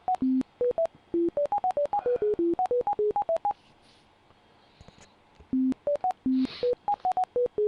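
A rapid run of short electronic beeps hopping between different pitches like a random melody, about seven a second, from bioresonance NLS scanning software as it runs a scan. The beeps pause for about two seconds midway, then resume.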